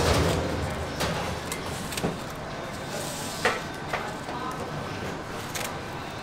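Scissors cutting through a thin, crisp pressed prawn cracker sheet: a louder noisy crackle at the start, then a string of short, sharp snips and cracks.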